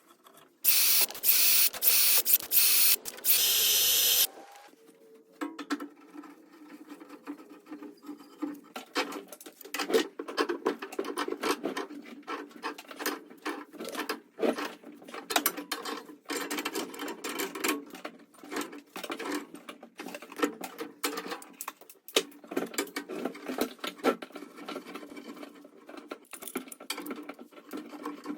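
Tools at work: several short, loud hissing bursts in the first few seconds, then a long run of fast, rattling mechanical clicking.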